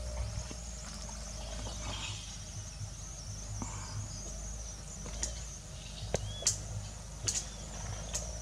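Insects chirping in a steady high trill, with a few sharp clicks and taps in the second half as fish are laid on a rack of green sticks over an open fire.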